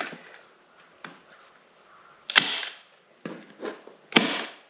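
Staple gun firing several times, fixing boat carpet in place: sharp snaps, the loudest about two and a half and four seconds in.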